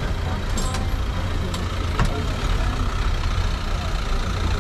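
Steady low engine rumble of road vehicles moving slowly in a narrow street, with a few short clicks.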